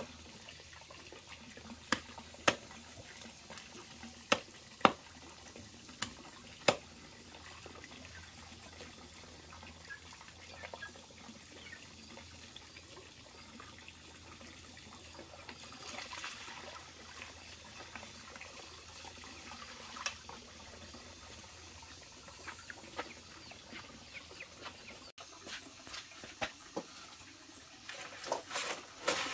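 Several sharp knocks, about seven in the first seven seconds, then quieter splashing and handling of water with scattered small clicks, growing busier near the end.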